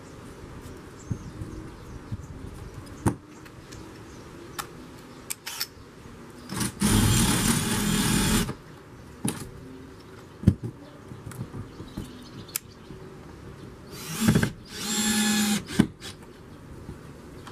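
Cordless drill running twice: a run of about two seconds boring a pilot hole through the polycarbonate sheet into the timber batten, then, after a few clicks and knocks of handling, a shorter stop-start run driving the roofing screw through its white thermal washer.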